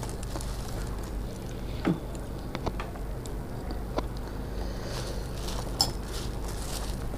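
Puffed rice and wet pea curry being mixed by hand on a steel plate, rustling and squishing. A few sharp clinks come from a steel spoon against the glass curry bowl and from the plate.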